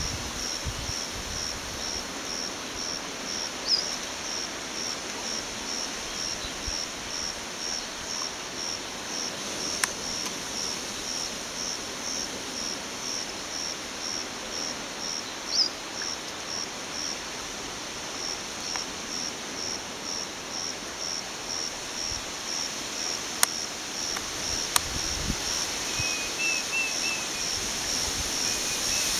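An insect chirping steadily, short high chirps repeated at an even rhythm, over the hiss of flowing river water. Near the end a brief twittering call is heard.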